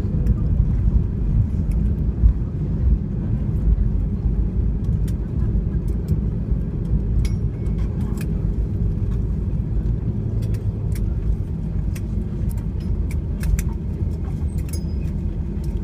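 Steady low rumble inside an Airbus A320's cabin, with light clicks and rattles over it.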